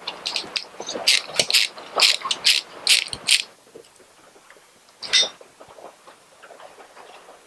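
Ratcheting screwdriver clicking in quick, uneven strokes for about three and a half seconds as it loosens the hose clamp holding the airbox on. One more loud click comes about five seconds in, followed by faint ticks.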